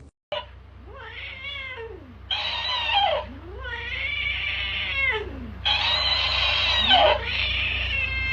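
A cat yowling: about five long, drawn-out meows in a row, each rising and then falling in pitch.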